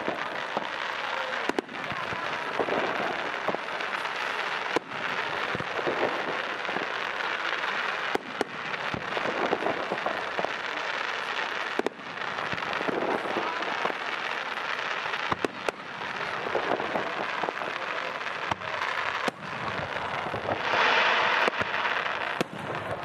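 Aerial fireworks display: a continuous crackle and popping of shells bursting, with a louder, denser crackle about twenty seconds in.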